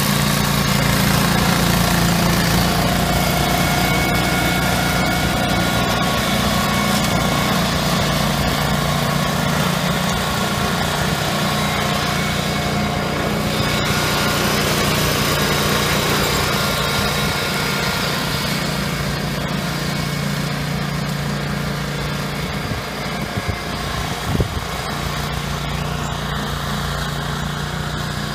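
Billy Goat 24-inch Outback brush cutter's 388cc Honda engine running steadily under load as the self-propelled machine mows through tall grass and brush, with one short knock near the end.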